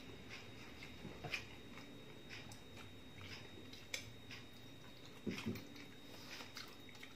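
Faint close-up eating sounds: a mouthful bitten and chewed, with small scattered clicks and smacks and a brief louder mouth sound about five seconds in.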